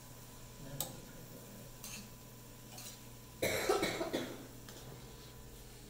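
A person coughing once, a short harsh burst about three and a half seconds in, with a few faint clicks before it.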